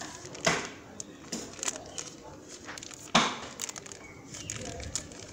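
Thin plastic bag crinkling and rustling as a clip-on lavalier microphone and its cable are pulled out of it. There are two sharper crackles, about half a second and about three seconds in.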